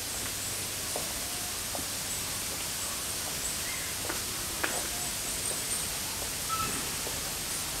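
Steady background hiss with faint, scattered clicks and a few brief high chirps.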